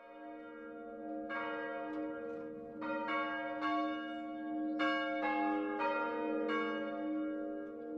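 Church bells ringing: a run of strikes, one every half second to a second, each ringing on under the next.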